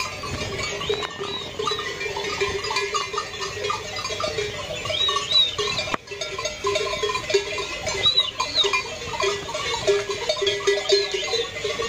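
Bells on a moving flock of sheep and goats clanking and ringing continuously as the animals walk.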